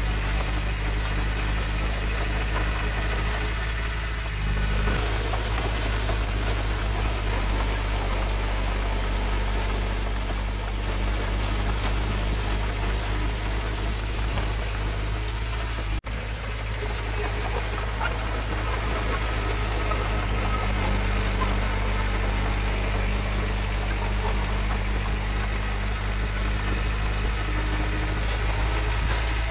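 Heavy diesel engine of earthmoving equipment running steadily as a deep, even drone, with a brief dropout about halfway through.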